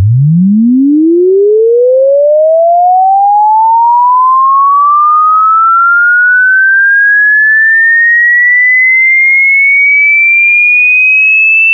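A single pure electronic tone sweeping steadily upward in pitch, from a deep hum to a high whistle, climbing quickly at first and then more slowly. It is loud and even throughout, and cuts off abruptly at the top.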